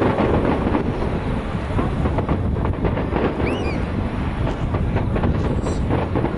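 Aerial fireworks bursting in quick succession: an unbroken rumble of booms with crackling reports scattered through it.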